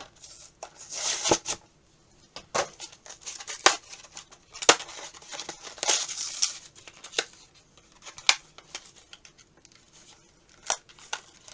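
Action-figure packaging being opened by hand: cardboard and plastic rustling and tearing, broken by sharp clicks and knocks.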